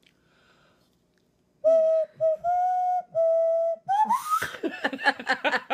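A small handheld whistle playing a few held notes: the first two the same pitch, the third a little higher, the fourth slightly lower. This is followed about four seconds in by an upward slide and a quick run of broken, fluttering sounds.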